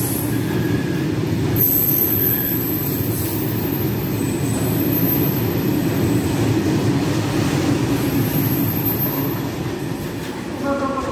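Freight train of hopper wagons rolling past, with a steady rumble of wheels on the rails and thin, very high wheel squeals that come and go.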